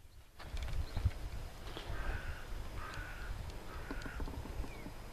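A crow cawing three times, about a second apart, each caw about half a second long.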